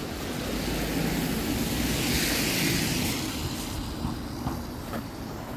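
A vehicle passing on the street, its noise swelling for about two seconds and then fading away. A few faint scrapes and knocks of a snow shovel come near the end.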